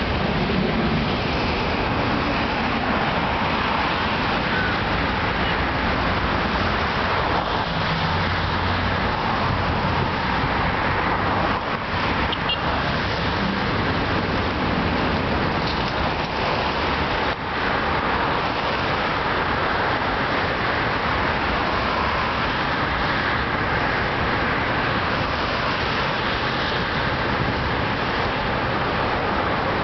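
Steady noise of city road traffic mixed with the engines of an airliner climbing away after takeoff, held at an even level with no distinct events.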